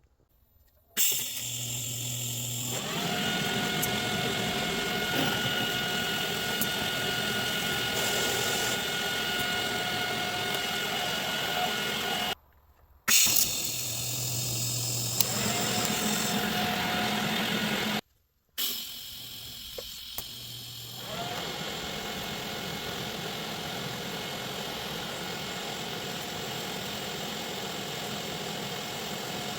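Welding the small steel mounting tabs onto the motorcycle frame: a steady arc hiss with a machine whine over it. It runs in three passes that are cut off abruptly by short silent gaps.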